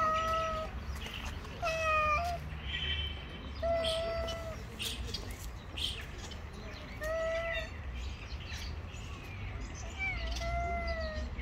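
Tomcats yowling at each other in a territorial standoff before a fight: five drawn-out, fairly steady-pitched calls, each up to about a second long, coming every two to three seconds.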